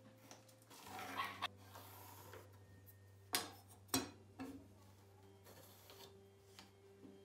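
A metal ruler and a pallet-wood board handled on a wooden tabletop: light rubbing and scraping, with two sharp knocks about half a second apart midway, then a pencil scratching a line on the wood.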